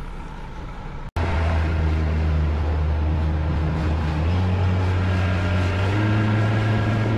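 An inflatable boat's engine running under way at speed, a steady loud hum that steps up slightly in pitch twice. It starts abruptly about a second in, after a quieter low hum.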